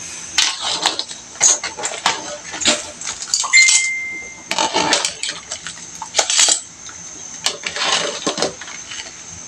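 Wire spider strainer clinking and scraping against a metal cooking pot while boiled crabs are scooped out of the water, a string of sharp clinks with one metallic ring lasting about a second, starting about three and a half seconds in.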